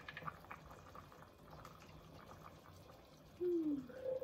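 Spoon scraping thick coconut milk out of a metal can into a pot of simmering soup, with soft scattered taps and clicks. Near the end comes a short, louder tone that falls in pitch, followed by a brief higher one.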